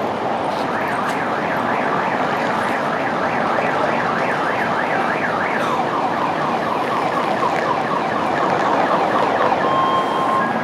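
An electronic siren warbling rapidly up and down, several sweeps a second, over steady street traffic noise. Near the end comes a short steady beep.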